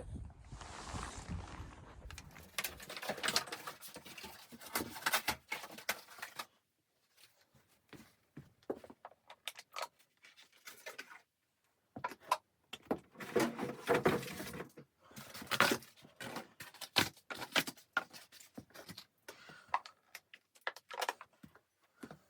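Irregular clicks, knocks and rustles of things being handled in a small room, with a couple of short pauses.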